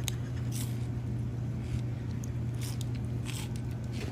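Someone chewing a vending-machine snack, with a few soft crunches, over a steady low electrical hum.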